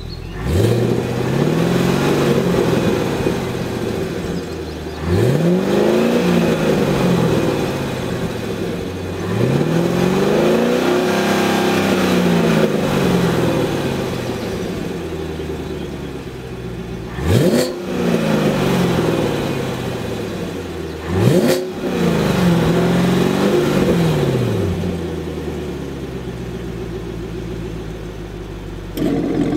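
2016 Chevrolet Camaro SS's 6.2-litre LT1 V8 revved while standing, through a Baq cat-back exhaust with its valves closed (stealth mode). It revs five times, three slower, longer rises and then two quick blips, and each time falls back to a steady idle. The idle gets louder just before the end.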